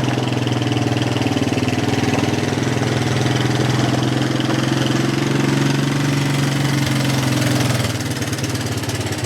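Small two-stroke Evinrude Deluxe 4 hp outboard motor running at a steady idle, easing slightly near the end.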